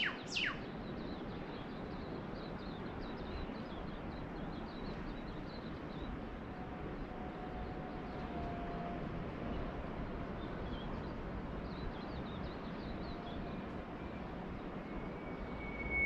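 Steady wash of gentle surf with bush birds calling. Just after the start a bird gives a sharp, fast down-sweeping whip-crack. Near the end one holds a long single-pitched whistle, with faint high twittering from small birds in between.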